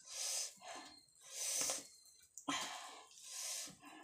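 A person breathing audibly while chewing: about four short, hissy breaths a second or so apart.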